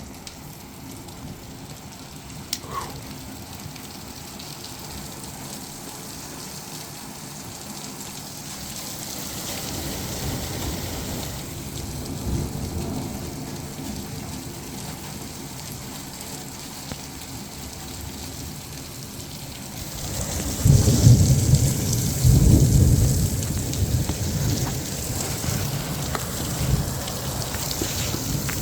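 Steady rain pattering, with a rolling rumble of thunder that builds about twenty seconds in and stays loud and low to the end.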